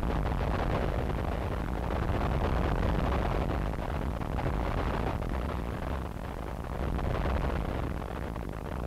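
Harsh noise wall: a dense, unchanging wall of distorted noise, heaviest in the low and middle range, played from cassette.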